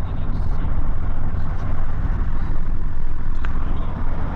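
Steady low rumble of a road vehicle driving slowly in traffic, heard from inside the cabin, with one faint click about three and a half seconds in.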